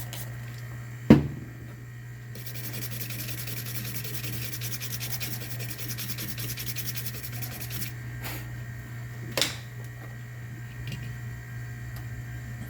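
Rapid scrubbing on a circuit board, cleaning off solder flux with alcohol, running for about five seconds after a sharp knock about a second in; a steady low hum underneath.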